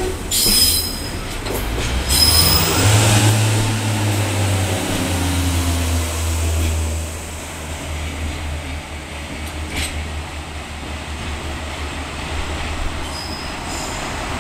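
Class 142 Pacer diesel railbus: brief high wheel squeals in the first couple of seconds, then the underfloor diesel engine running with a steady low drone.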